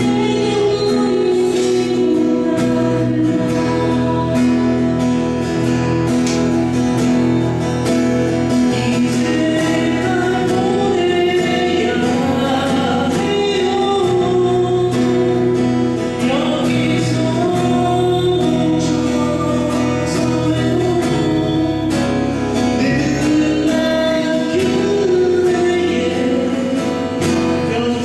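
A song performed with singing over guitar accompaniment and a steady beat.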